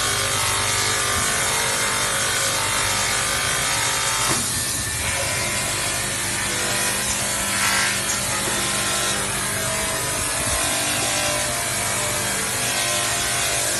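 Abrasive sanding and polishing machines working stainless steel utensils: a steady, continuous grinding rasp over a constant machine hum.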